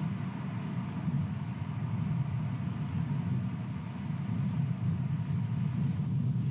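Wind buffeting the nest camera's microphone: a steady low rumble that swells and dips.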